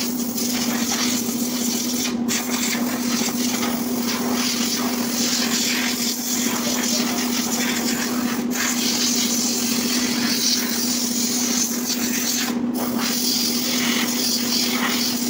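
Compressed-air paint spray gun hissing steadily, with a steady low hum underneath and a few very brief breaks in the hiss.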